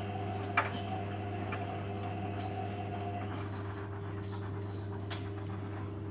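Beko Eco Care WMA 1510 washing machine running its main wash: a steady motor hum, with a faint higher whine that stops about three seconds in and a light click about half a second in and another near the end.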